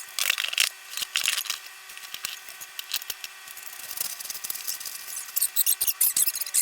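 Hand tools working at a wall opening: irregular scratchy scraping strokes and sharp clicks in short bursts, busiest about a second in and again after about five seconds.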